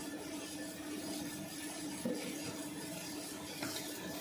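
Steady machinery hum with a few fixed tones, under soft rubbing and two light knocks, about two seconds in and again near the end, as hands handle cut jumbo toilet paper rolls.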